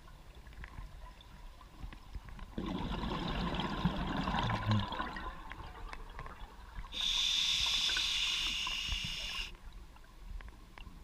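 Scuba regulator breathing heard underwater: a bubbling gurgle of exhaled air a few seconds in, then a steady hiss of an inhale through the regulator lasting about two and a half seconds.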